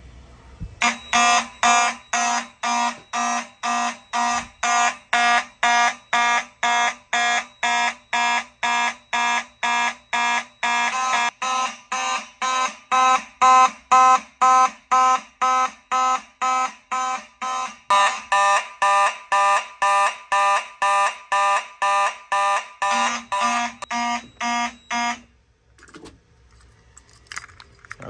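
Mechanical fire alarm horns sounding together in loud, rapid pulses of about two a second, the system in alarm after a smoke detector was set off with fog. The horns cut off suddenly a few seconds before the end.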